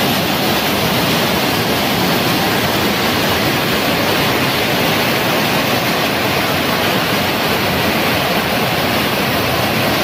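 Rain-swollen floodwater rushing in a fast, churning torrent: a steady, even rush of water noise.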